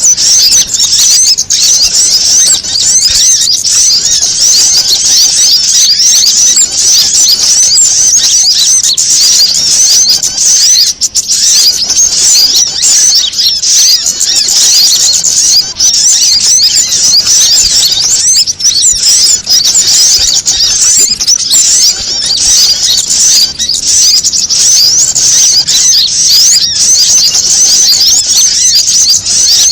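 Dense, noisy chatter of many small birds: rapid high chirps and trills overlapping without pause. It is a bird-lure mix of prinia, female sogon, agitated kemande and panicked sunbird calls.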